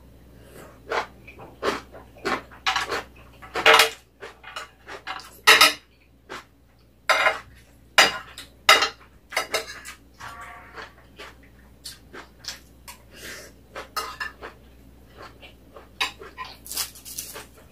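A metal spoon and chopsticks clinking and scraping against ceramic plates in irregular sharp strikes, the loudest about four, five and a half and eight seconds in, mixed with the mouth sounds of someone chewing.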